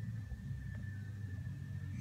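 Faint steady background hum, low-pitched, with a thin high whine held on one note; no distinct handling sounds or other events stand out.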